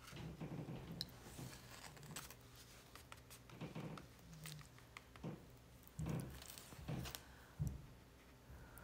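Faint, irregular scratching and rubbing of a watercolour brush and fingers on paper, with a few small clicks.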